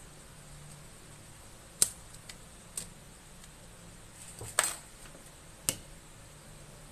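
Sharp clicks and taps of small hand tools and parts being handled on an opened laptop. About five knocks are irregularly spaced: the loudest comes about two seconds in, and a quick little rattle of clicks follows past the middle.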